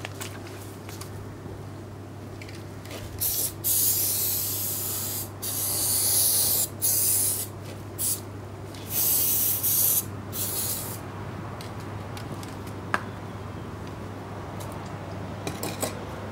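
Aerosol spray can hissing in a run of about seven bursts, each roughly a half to one and a half seconds long, sprayed at a vintage chainsaw.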